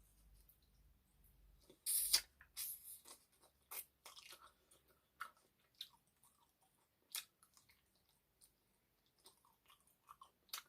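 Close-miked eating of egg noodles with chicken curry: chewing with scattered wet mouth clicks and smacks, the loudest cluster about two seconds in.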